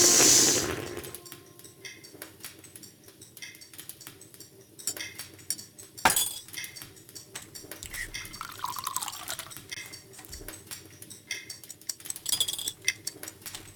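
A loud ringing wash fades out over the first second. Then come scattered light clinks and taps of dishes and cutlery, with a sharper click about six seconds in and a short falling tone a little later.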